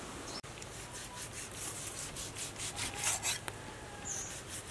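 Cleaver slicing through a raw pork joint on a wooden chopping block: quick, regular sawing strokes, about four a second, the blade rasping through meat and fat against the board.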